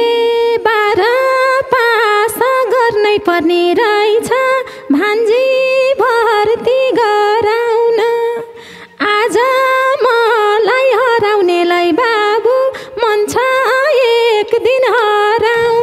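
A single voice singing a wavering, heavily ornamented melody with no drums beneath it, breaking off briefly about eight seconds in before carrying on.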